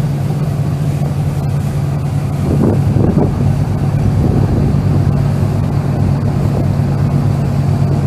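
Ferry engine running with a steady low drone, heard from on board.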